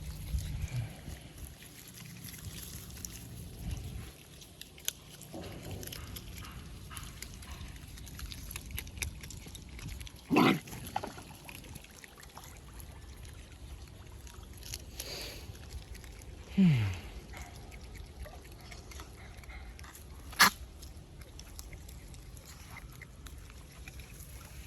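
Otter making a few short scattered calls, one a low grunt that falls in pitch, with a sharp click about twenty seconds in.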